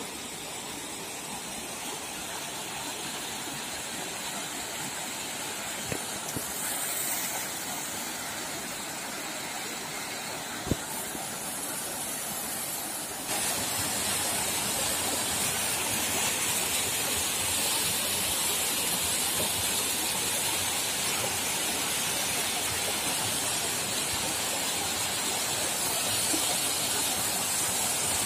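Small waterfall splashing steadily into a rock pool, a constant rush of water that grows louder about halfway through, with a couple of faint knocks before that.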